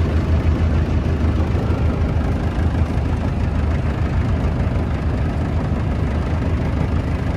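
Engine of a motorized Kerala backwater boat running steadily while cruising: a steady low drone with a rushing wash over it.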